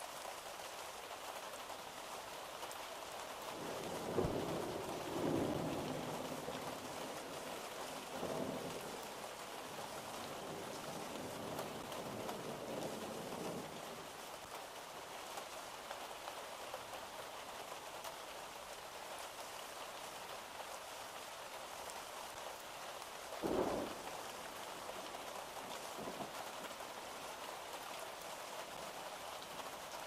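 Steady rain falling, with thunder rumbling several times in the first half and one short, sharp thunderclap about two-thirds of the way through.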